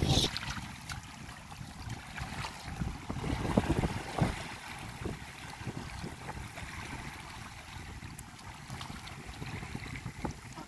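Small splashes and trickling water, with a low wind rumble on the microphone and scattered light knocks.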